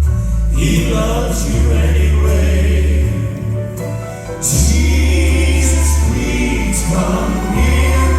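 Male gospel quartet singing in harmony over backing music with a deep bass line that holds long notes.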